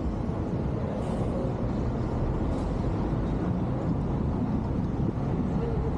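Steady city traffic noise, a continuous low rumble of passing road vehicles.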